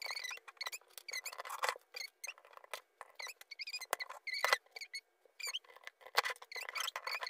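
Plastic Lego bricks clicking and knocking as they are handled and pressed together, among many short, high squeaky chirps that repeat throughout.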